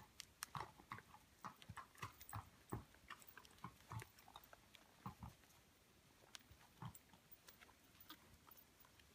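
A ridden horse moving on sand arena footing: faint, irregular soft thuds of hooves mixed with small sharp clicks of tack, two or three a second.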